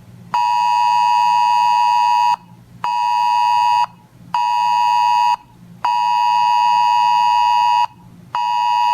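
Weather alert radio sounding its alert: a loud, steady, high-pitched beep that switches on and off in a pattern of long and short beeps. A long beep of about two seconds is followed by two one-second beeps, then another long beep and a short one, with half-second gaps between them. The alert signals an incoming National Weather Service warning message.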